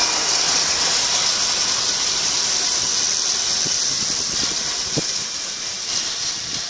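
Tractor-drawn Kuhn FC 4000 RC disc mower-conditioner cutting grass, running with a steady high whine over the tractor's engine. It fades slowly as the rig moves away.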